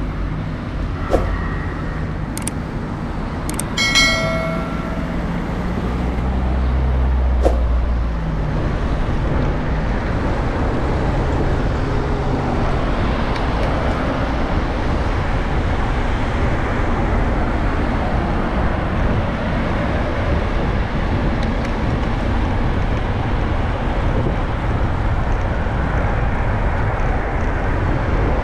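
Steady road and wind rush from a bicycle-mounted camera on a mountain road, with passing cars' engines humming in the first eight seconds. A few sharp clicks and a brief high pitched tone come about four seconds in.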